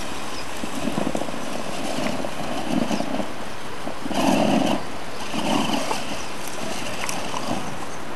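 Electric drive motors and gearing of a radio-controlled rock crawler whirring in short bursts as it is throttled down a rock slab, over a steady background hiss.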